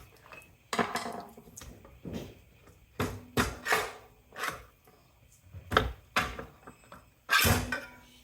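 Irregular metal knocks and clatter from hand-dismantling a pump for scrap, about half a dozen sharp hits spaced a second or so apart, with the loudest near the end.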